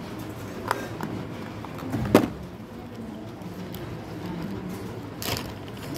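Clicks and knocks of small plastic parts being handled. A sharp knock about two seconds in is a small clear plastic case being set down on a plastic Beyblade stadium, with a lighter click before it and another short clatter near the end. A steady low hum runs underneath.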